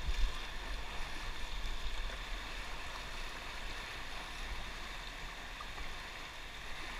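Steady rush of moving river water, with an uneven low rumble underneath.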